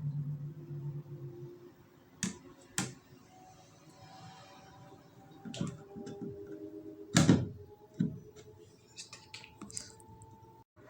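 Scattered sharp clicks and knocks of parts of a bathroom ventilation fan being handled during repair, the loudest about seven seconds in. A low hum dies away in the first second and a half.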